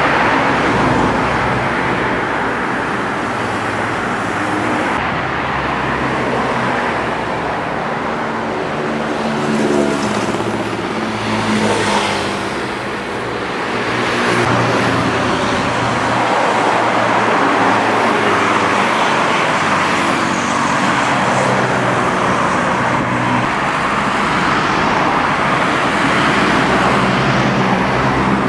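Steady road traffic noise, with a vehicle engine passing about ten to twelve seconds in.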